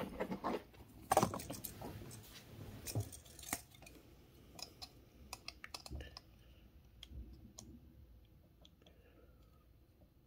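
Hands handling a plastic scale-model airliner wing and its molded plastic packaging tray: rustling and light plastic clicks, busiest in the first few seconds, then a few faint scattered ticks.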